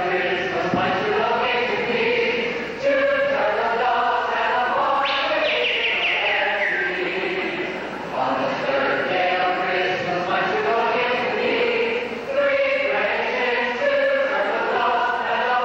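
Madrigal choir singing in phrases of a few seconds, with a high falling sweep about five seconds in.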